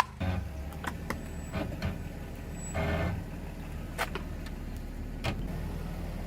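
Car engine running slowly and steadily, with a few scattered sharp cracks and one short crunching burst about three seconds in, as objects under the tyres give way.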